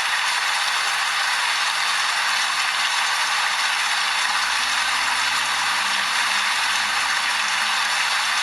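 Steady, dense rain: an even hiss of many small drops pattering.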